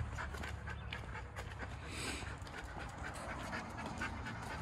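A dog panting, several quick breaths a second.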